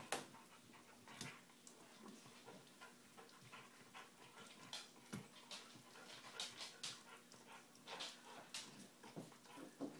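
A dog gnawing a bone: irregular clicks and scrapes of teeth on bone, coming more often later on.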